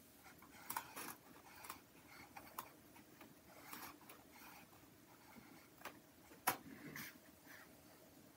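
Faint, scratchy strokes of a flat brush dry-brushing acrylic paint onto a canvas: a scattering of soft scrapes and ticks, the clearest about six and a half seconds in.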